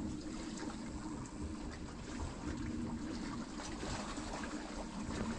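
Water pouring in a thin steady stream into a stainless steel camping mug, trickling onto dry instant noodles.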